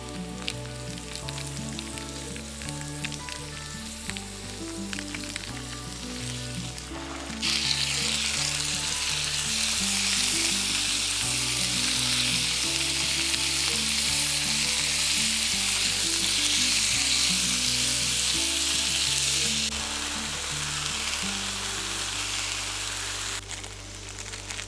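Sliced pork and vegetables frying on a hot round griddle pan while being stirred with chopsticks and a spatula: a loud sizzle starts about a third of the way in and eases off about four-fifths through, with light utensil clicks before it. Background music plays throughout.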